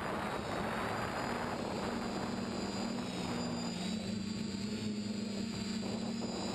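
TBS Discovery quadcopter's electric motors and propellers buzzing in flight, heard from its onboard camera, the pitch wavering slightly with throttle. A rush of wind over the microphone runs under it and eases off for a while past the middle.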